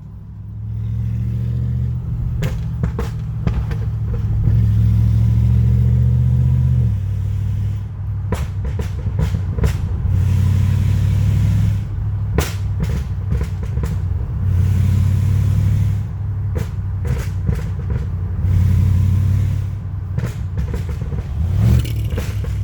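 Chevrolet Camaro SS V8 with long-tube headers and a Borla ATAK exhaust, on a tune, revved and held about four times. Between the holds, as the throttle comes off, the exhaust lets out bursts of sharp pops and crackles.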